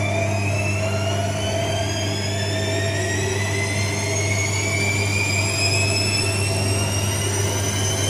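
AEG Lavamat front-loading washing machine speeding its drum up to spin, the motor's whine rising slowly and steadily in pitch over a steady low hum.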